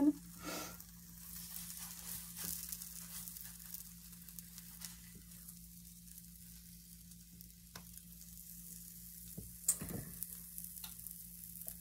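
Pancakes sizzling faintly in a hot frying pan while a spatula scrapes and taps against the pan as they are flipped, with the sharpest scrape or knock near the end. A low steady hum runs underneath.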